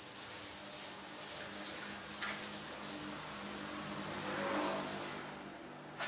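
Chalkboard duster rubbing chalk off a blackboard, a soft scrubbing haze over a steady low hum that swells briefly about four and a half seconds in.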